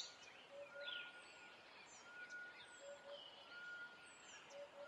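Faint background birdsong: short whistled notes and quick chirps, coming every second or so.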